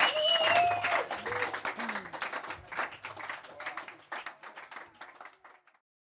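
Small audience clapping, with a few cheering whoops and shouts in the first couple of seconds. The applause thins and fades out about five and a half seconds in.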